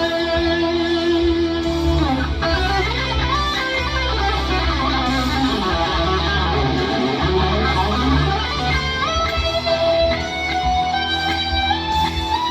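Electric guitar, played through a Fractal FM9 amp modeler, improvising a lead in E minor: a held note for about two seconds, then fast runs of notes, then a line that slides steadily upward near the end.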